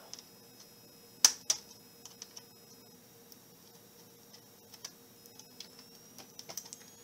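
Small sharp clicks and taps of a screwdriver working small screws out of a laptop screen's mounting: two louder clicks a little over a second in, then scattered faint ticks.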